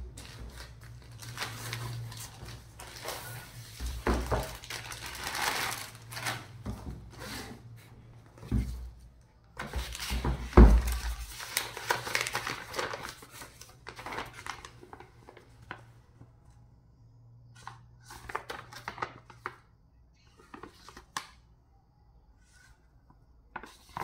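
Clear plastic wrapping and packaging crinkling and tearing as a boxed keyboard is opened, broken by three dull thumps of the box being handled. Then shorter, sparser rustles of paper leaflets being unfolded.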